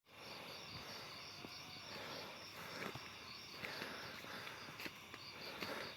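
Insects chirping in a steady pulsing trill, several pulses a second, with a few scattered soft ticks.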